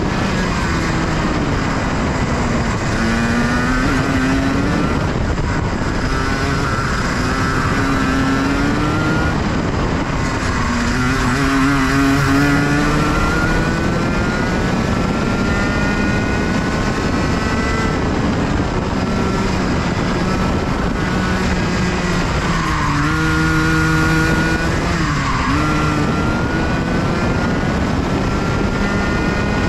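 Racing kart engine at speed, heard onboard: its pitch climbs steadily on the straights and drops sharply twice, about a third of the way in and again about four-fifths of the way through, as the kart slows for corners before picking up again.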